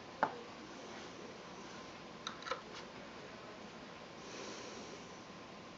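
A sharp metallic click, then two or three lighter clicks about two seconds later, from handling and tool contact inside a cuckoo clock's brass movement.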